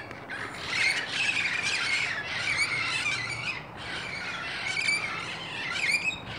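A flock of Amazon parrots squawking and chattering, many harsh calls overlapping almost without pause, with a brief lull a little past the middle.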